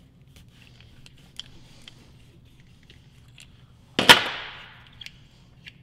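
Quiet small clicks of wires being handled, then about four seconds in a single sharp clank of a metal hand tool set down on a steel workbench, ringing briefly before dying away.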